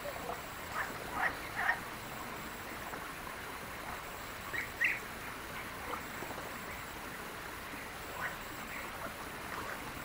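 Short animal calls, singly and in quick pairs, scattered over a steady background hiss; the loudest pair comes about five seconds in.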